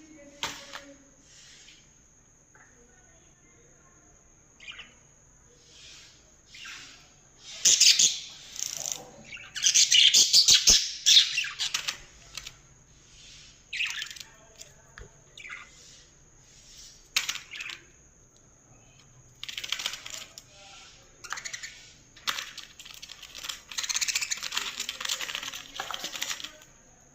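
Pet budgerigars chattering and squawking in irregular harsh bursts, loudest around eight to eleven seconds in and again from about twenty seconds on.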